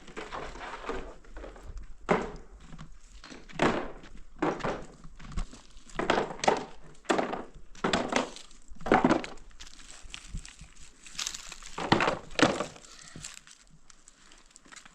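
A series of irregular knocks and thuds, about a dozen, sharp and uneven in spacing, like hard material such as wood being struck or broken.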